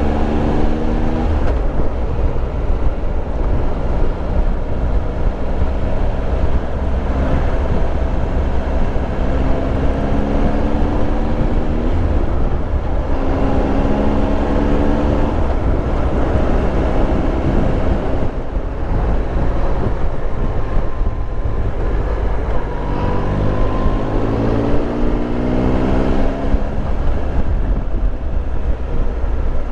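Triumph Tiger Explorer 1200's three-cylinder engine under way, its note climbing several times under acceleration and dropping back between, over steady wind and road rush.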